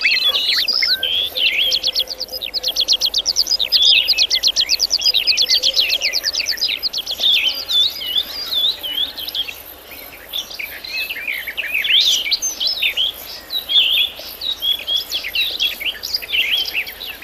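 Birdsong: high chirps and short twittering phrases, with a fast run of evenly repeated notes from about two to seven seconds in.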